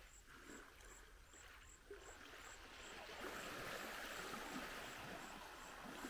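Small waves lapping faintly on a sandy shore, the wash swelling about halfway through, with a faint high tick repeating about twice a second.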